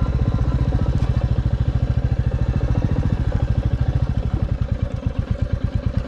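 Royal Enfield Classic 350 Reborn's single-cylinder engine running at low speed with an even, rapid beat, which slows near the end.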